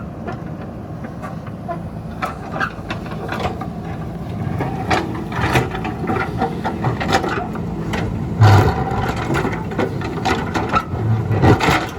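Diesel engine of a JCB backhoe running under load, with repeated clanks and knocks from the machine at work. Two heavier knocks come about eight and a half and eleven seconds in.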